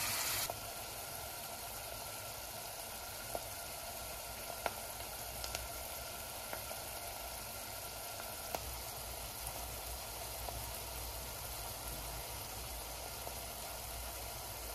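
Chopped onion, green pepper and garlic sizzling gently as they are sautéed: a steady hiss with a few scattered pops.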